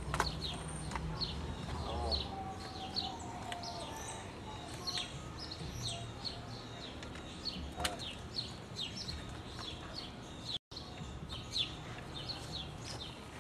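Small birds chirping: many short, quickly falling chirps repeating irregularly throughout. A low hum is underneath for the first two seconds and then stops.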